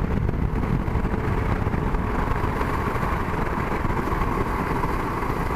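Suzuki V-Strom SX 250 motorcycle being ridden: steady engine and wind noise, cutting off suddenly near the end.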